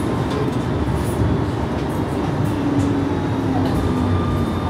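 A London Tramlink tram heard from inside its driving cab, giving a steady low rumble and hum, with a faint tone from the drive coming in through the middle.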